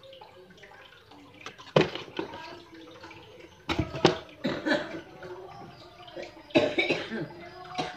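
Cloth snake bag being lifted out of a plastic tub and handled: about five sharp rustles and knocks, each ringing on briefly.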